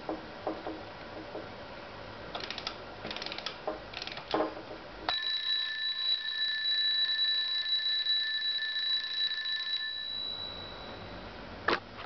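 Palomita wind-up alarm clock: a few seconds of clicking from its keys being turned, then about five seconds in the alarm goes off, its hammer ringing the brass bell steadily for about five seconds before it stops and the bell dies away. A sharp click near the end.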